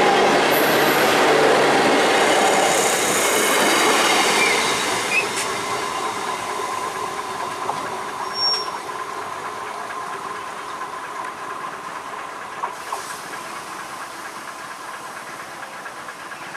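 An electric train running past on the tracks, loud for the first four seconds and then fading steadily as it moves away.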